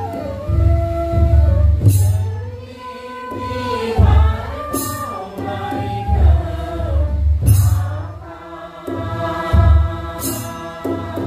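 A group of people singing a devotional prayer chant together, the voices rising and falling on long held notes. A sharp clash sounds about every three seconds, four times in all.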